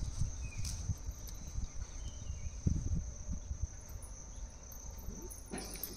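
Crickets trilling steadily in a high, continuous tone, over soft rustling and handling noise from leaves being plucked by hand.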